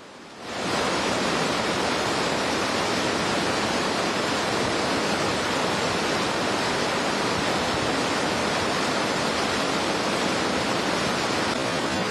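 Steady rush of whitewater from a fast stream tumbling over rocks, coming in abruptly about half a second in.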